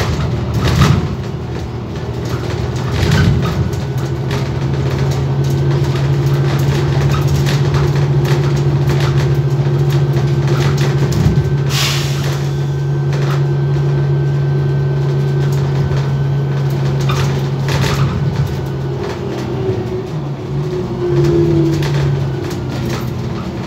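Inside an Iveco Urbanway 12 natural-gas city bus under way: engine and road noise, with a steady low drone that sets in a few seconds in and holds for about fifteen seconds before it wavers. Scattered clicks and rattles from the interior ride over it, with one stronger knock in the middle.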